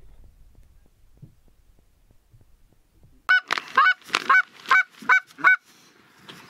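Hand-blown goose call sounding a quick run of about eight loud honks and clucks, each note breaking sharply in pitch. It starts about three seconds in, after a near-quiet stretch.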